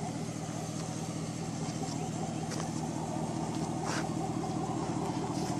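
Chevy Avalanche pickup's V8 engine running with a steady low drone that builds slightly in loudness, with two short sharp knocks about two and a half and four seconds in.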